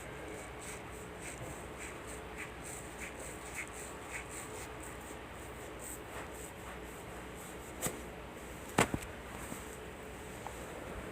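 Neck joints cracking under a massage manipulation: two sharp cracks about a second apart, the second louder, over a faint steady hiss.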